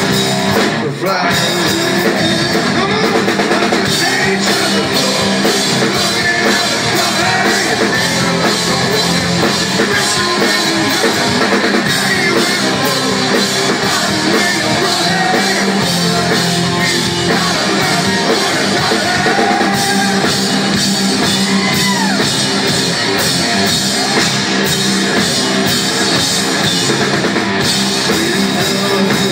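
Hard rock band playing live: electric guitars, bass and drum kit, loud and dense, heard from among the audience.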